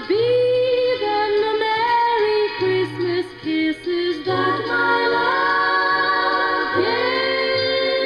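Recorded Christmas song: a woman singing with a backing choir and accompaniment, the voices moving into long held notes near the end.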